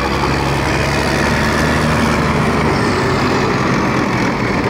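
Alvis CVR(T) light tracked armoured vehicle driving at speed, its engine running steadily under load. The engine note changes about two and a half seconds in.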